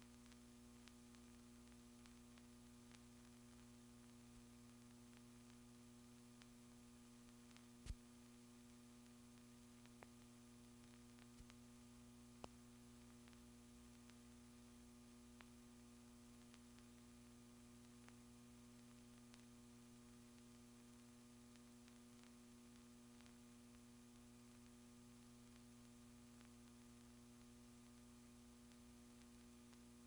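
Near silence: a steady low electrical hum with a few faint clicks, the sharpest about eight seconds in.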